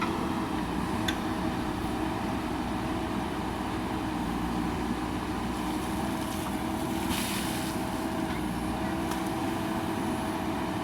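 JCB backhoe loader's diesel engine running steadily, with a few light clanks and a brief hiss about seven seconds in.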